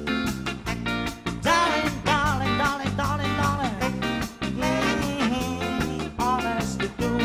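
Live band playing an upbeat number, with a steady drum beat under a lead melody that bends and slides in pitch.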